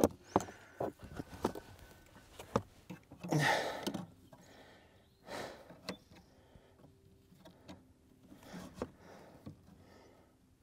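Scattered clicks and knocks of metal on metal as the old clutch spring assist is pried at on a Mustang GT350's clutch pedal assembly, with a few heavy breaths in between.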